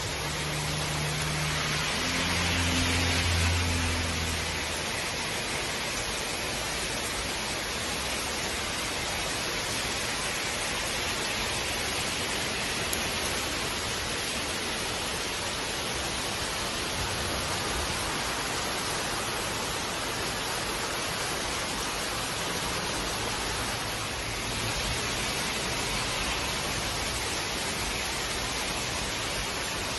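Heavy rain falling in a steady, even hiss. A low hum sits under it for the first few seconds and fades out about four seconds in.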